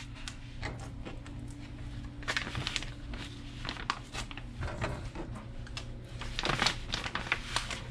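A clear plastic vacuum-sealer bag crinkling and rustling in the hands as raw chicken breasts are laid into it, in scattered short crackles, over a low steady hum.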